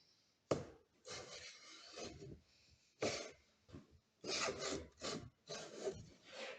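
A hand tool worked over wood in a series of short, uneven scraping strokes, about one a second.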